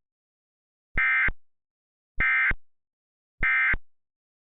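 Emergency Alert System end-of-message SAME data bursts: three short, identical buzzy digital tone bursts about a second apart, signalling the end of the alert.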